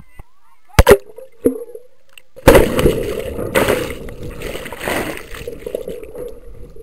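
Handling noise on the camera's microphone: two sharp knocks about a second in, then from about halfway through a loud rubbing and rustling as a hand covers the camera.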